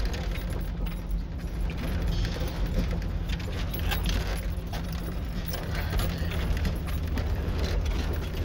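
Jeep driving slowly over a rough dirt trail, heard from inside the cab: a steady low engine and road drone with constant jangling and rattling as the vehicle jolts over the bumps.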